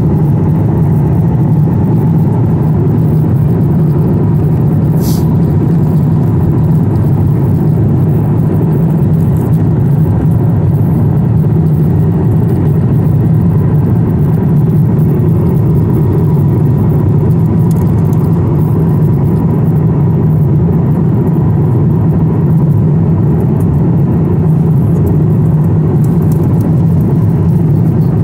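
Steady cabin drone of an airliner in cruise, engine and airflow noise heard from inside the cabin. It is loud and even throughout, heaviest in the low range.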